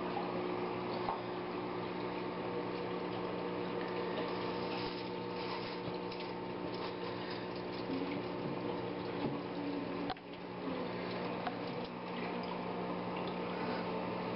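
Turtle tank's water filter running: a steady electric hum with water splashing and trickling into the tank.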